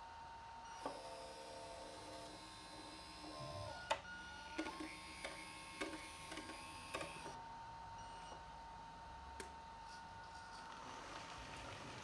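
RC tipping trailer's small electric motor and mechanism whirring as it raises the bed, with scattered clicks and knocks, one sharper knock about four seconds in.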